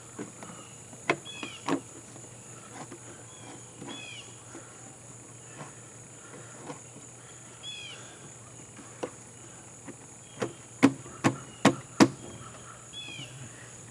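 Sharp clicks and knocks from hand work on an outboard motor, two about a second in and a louder run of four or five near the end, over a steady high insect drone and a short bird chirp repeated every few seconds.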